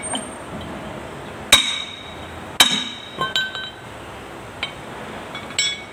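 Steel parts clinking and knocking on the open chain case and roller chain of a rotary tiller: two loud, ringing metallic strikes about a second apart, then several lighter clinks.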